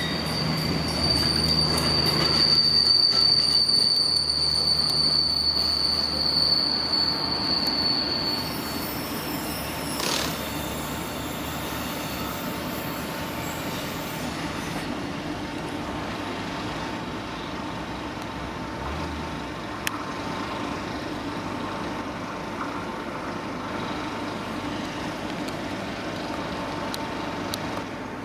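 Renfe passenger coaches rolling past close by, their wheels giving a high, steady squeal for about the first eight seconds that then dies away. A steady, quieter rumble of rail traffic follows as another train draws near.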